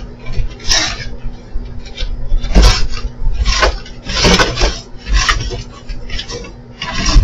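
A cat and a coyote scuffling on a wooden deck: a string of short, sharp hisses about every second or two, with dull thumps of bodies against the deck and chair.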